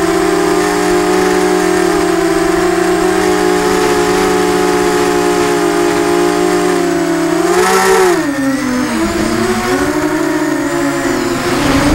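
Eachine Falcon 250 quadcopter's brushless motors and propellers whining, recorded on the drone's onboard camera: a steady multi-tone hum that rises briefly about eight seconds in, then drops and wavers as the throttle changes.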